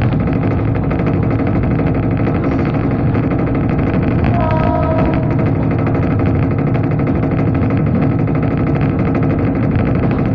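DEMU (diesel-electric multiple unit) train heard from inside a coach while running: a loud, steady diesel engine drone mixed with running noise. A brief higher tone sounds about four and a half seconds in.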